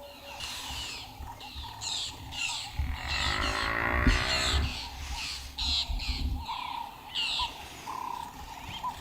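Birds calling over and over in short, harsh squawks, about two calls a second. About three seconds in, a deep drawn-out animal call lasting over a second sounds under them.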